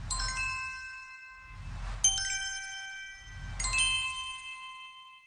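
Logo-intro sound effect: three low whooshes, each breaking into a bright, many-toned chime that rings and slowly fades. The second chime, about two seconds in, is the loudest.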